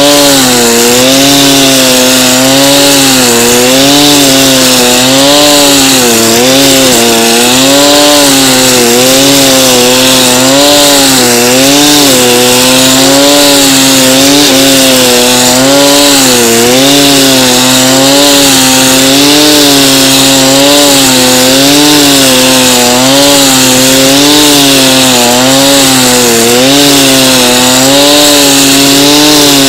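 Two-stroke brush cutter running at high revs with a nylon-cord trimmer head cutting grass. Its engine note wavers up and down every second or so as the head is swung back and forth through the grass.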